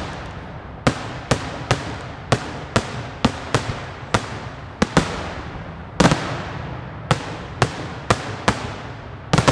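Daytime aerial fireworks shells bursting high overhead in a rapid string of sharp bangs, about two a second. Each bang trails off in an echo, with a louder double bang about six seconds in and another near the end.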